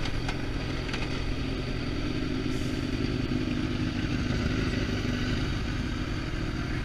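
Sport motorcycle engine running steadily, with steady road and wind noise, as the bike rolls slowly between stopped cars.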